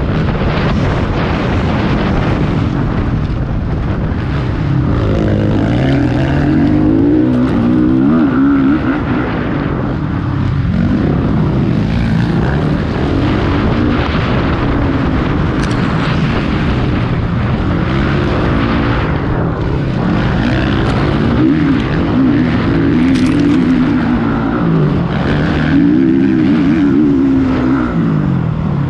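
Several motocross bikes racing, their engines overlapping and repeatedly rising and falling in pitch as the riders accelerate, shift and back off.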